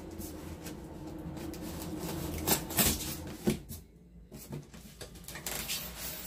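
A few sharp knocks and clicks of a shipping box of iced fish being opened and handled, over a low steady hum.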